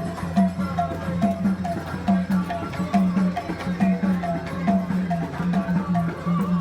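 Background music with a steady, even beat: a repeating low note pattern under a short, higher repeated figure.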